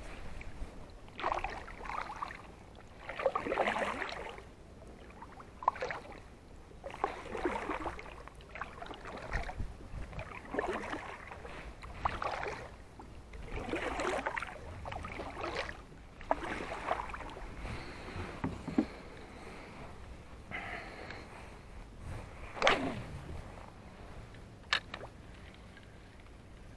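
Kayak paddle strokes swishing and splashing in the water, roughly one every one and a half to two seconds, with a sharp knock near the end.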